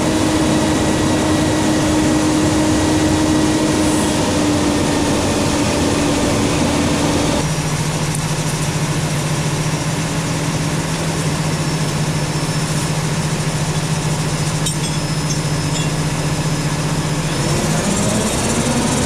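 An engine or motor running steadily, its drone dropping abruptly to a lower pitch about seven seconds in.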